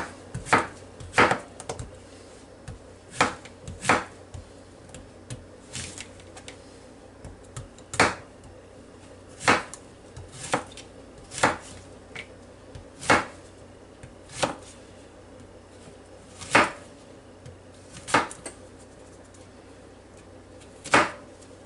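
Kitchen knife slicing yellow squash on a thin plastic cutting mat: a sharp knock each time the blade cuts through and strikes the board. The knocks are irregularly spaced, mostly a second or two apart, with a longer pause near the end.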